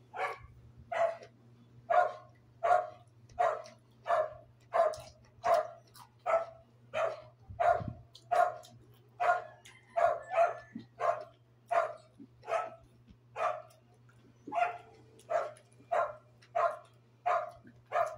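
A dog barking over and over at an even pace, roughly three barks every two seconds, with a short pause about two-thirds of the way through, over a steady low hum.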